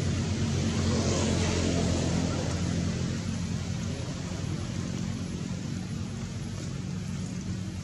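A motor engine running steadily, swelling about a second in and then slowly fading.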